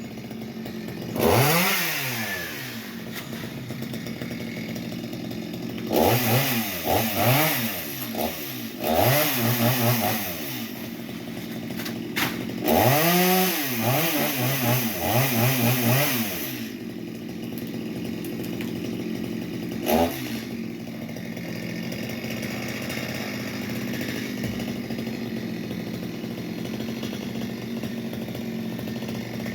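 Chainsaw engine idling steadily and revved in several bursts, each rising sharply in pitch and falling back to idle.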